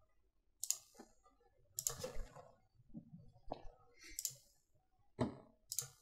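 Computer mouse buttons clicking: a string of sharp clicks at irregular intervals, about one a second, some with a duller knock behind them.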